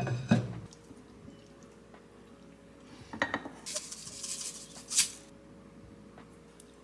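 A pan lid clanks down onto a pan, rattling briefly as it settles. About three seconds in come a few clicks, then the dry rattle of sesame seeds shaken from a container onto a bowl of food, ending in a sharp tick.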